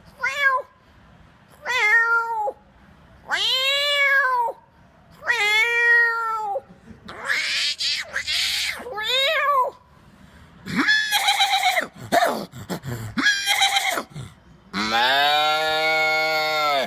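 A man imitating a cat with his mouth: a string of separate meows, each rising then falling in pitch, some higher and squeakier in the middle, then one long held call near the end.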